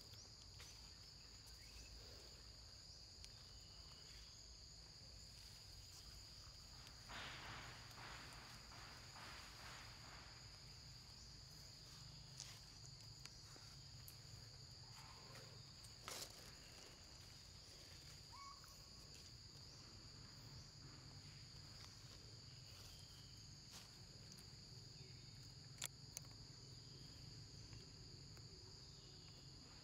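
Faint, steady insect chorus: two continuous high-pitched drones with no break. A few soft rustles and clicks sit on top.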